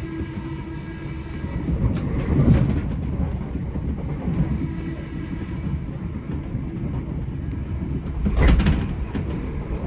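Class 387 electric multiple-unit train running, heard from inside: a steady rumble of wheels on the rails under a faint steady whine. Two louder swells of rattle come about two and a half and eight and a half seconds in.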